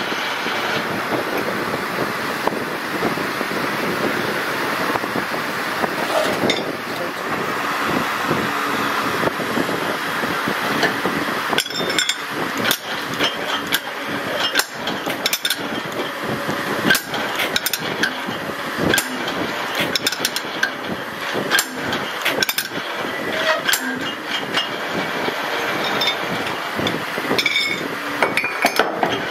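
Metal-turning lathe running steadily, with many sharp metallic clinks and knocks from a little under halfway through as steel parts are handled at the chuck.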